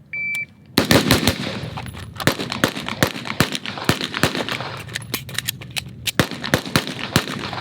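A shot timer's short electronic beep starts the drill, then under a second later rapid, uneven gunfire from two shooters firing at the same time, several shots a second with overlapping reports, keeps going with only brief gaps.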